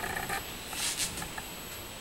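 Min-min cicadas (Hyalessa maculaticollis) droning steadily in the trees. A short pulsing call comes at the very start, and a brief high buzzing burst about a second in.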